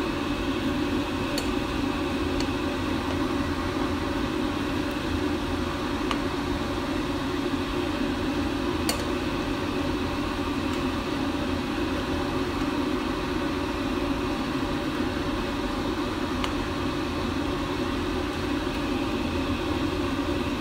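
Steady rushing noise of a pan of water and chicken pieces at a rolling boil on the stove, with a few faint clicks of the metal spoon skimming off the scum.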